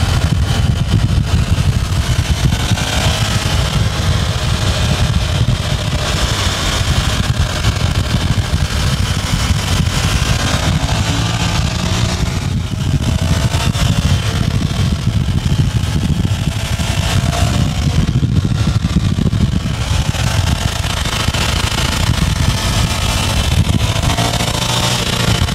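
Ducati Monster 696 air-cooled L-twin motorcycle engine running at freeway speed, heard from a car pacing alongside. Its note wavers slightly under a loud, steady low rumble of wind and road noise.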